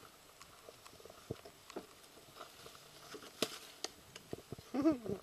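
Plastic wrap rustling and crinkling in scattered short crackles. A brief vocal sound comes about five seconds in.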